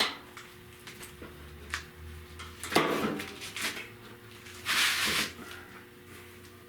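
Clamps and a sheet-metal repair piece being handled and set in place: a click at the start, a clatter about three seconds in, and a brief scrape near five seconds.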